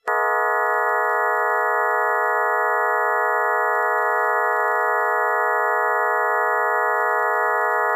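Emergency Alert System attention signal: a loud, steady alert tone that starts abruptly and holds without any change. The tone has been layered into a 'G major' chord, so it sounds as a stack of many steady pitches, not as the usual two-tone drone. It marks a coordinated test of the Emergency Alert System.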